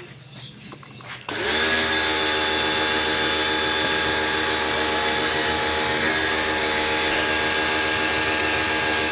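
Pressure washer kicking on about a second in. Its motor spins up and then runs at a steady pitch while the jet sprays a motorcycle's rear wheel.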